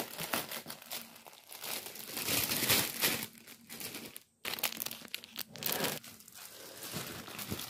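Clear plastic poly-bag packaging crinkling and rustling in irregular bursts as a dress is unwrapped and pulled out by hand, cutting out briefly about four seconds in.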